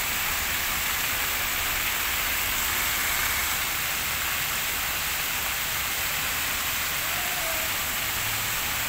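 Fountain jets splashing steadily into their basin: an even, unbroken rush of falling water.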